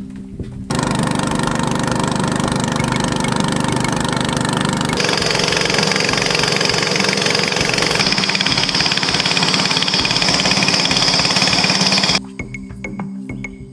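Boat engine running loudly with a steady low hum, starting abruptly about a second in and cutting off near the end, its tone shifting twice along the way.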